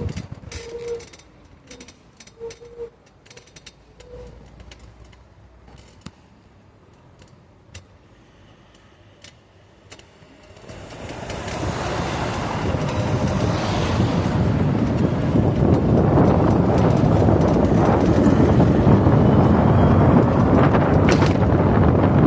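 Quiet for the first half apart from scattered clicks and a few short tones, then a rush of wind on the microphone builds about halfway through and holds loud and steady as the electric ATV gets moving.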